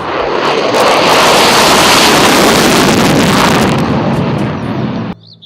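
Fighter-jet roar, swelling to a loud peak and then cutting off abruptly about five seconds in.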